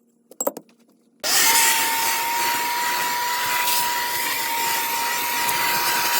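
An electric motor runs steadily at one speed with a single high whine over a loud rush of noise. It starts abruptly about a second in, after a couple of light clicks, and cuts off sharply near the end.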